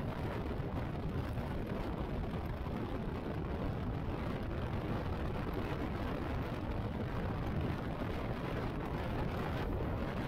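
Motorcycle riding at steady speed: an even rush of wind and road noise over the microphone, with no clear engine note standing out.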